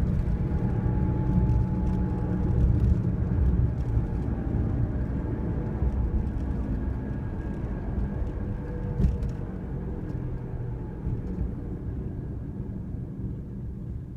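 Worn front wheel hub bearing droning with a 'woon' sound over road rumble, heard inside the car's cabin while driving. The sound fades gradually over the second half.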